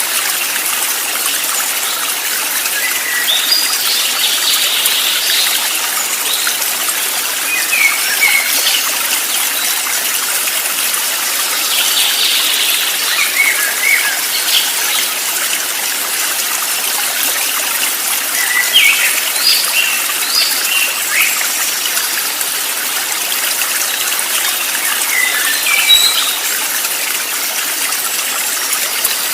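Steady rushing of a flowing stream, with short bird chirps breaking in every few seconds.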